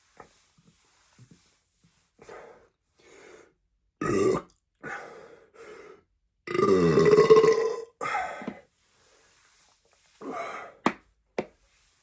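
A person belching over and over: a string of short belches, a loud one about four seconds in, and the longest and loudest belch about halfway through, dropping in pitch for over a second. A few more short belches follow, then two sharp clicks near the end.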